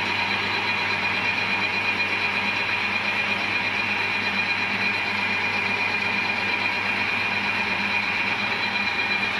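Metal lathe running steadily while the cutting tool turns a welded steel workpiece, a continuous machining noise with a high-pitched whine over the hum of the spinning chuck.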